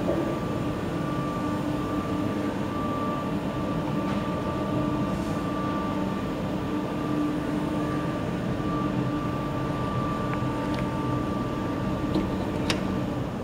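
Caterpillar diesel engine of a Roman 19.410 truck running steadily at an even speed, with a constant hum. A couple of sharp clicks come near the end.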